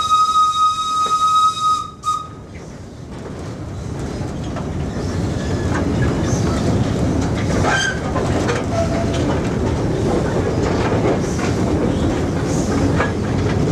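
Small wood-fired steam locomotive's whistle blowing one steady note that cuts off about two seconds in. The engine then runs along the track, its rumble and rail clatter building over a few seconds and then holding steady.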